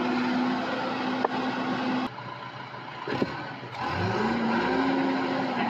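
Excavator engine running at a steady pitch, cutting off abruptly about two seconds in. After a knock, the engine revs up sharply about four seconds in, holds high, and starts to drop near the end.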